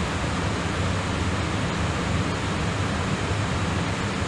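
Steady rushing noise with a low hum under it, during a gap between air traffic control radio transmissions.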